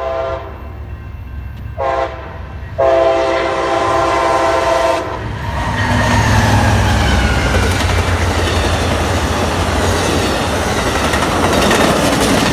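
Amtrak Siemens Charger diesel locomotive's horn: one blast ends, then a short blast, then a long one, the close of the grade-crossing signal. Then the locomotive rumbles past close by, and the double-deck Superliner passenger cars roll steadily by on the rails.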